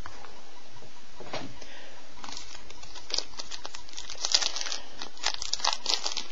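Trading cards handled by hand, rustling and crinkling, with a quick run of small sharp clicks and snaps starting about two seconds in.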